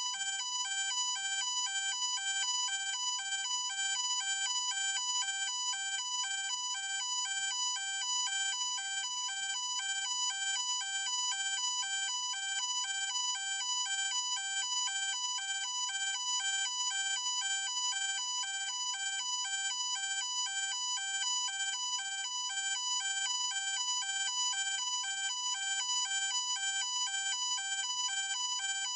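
Electronic ambulance siren in a two-tone hi-lo pattern, flipping rapidly back and forth between two pitches and going on steadily without a break.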